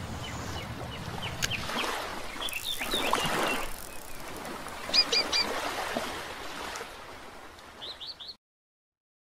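Small birds chirping in short, quick calls over a steady outdoor hiss; the sound cuts off to silence near the end.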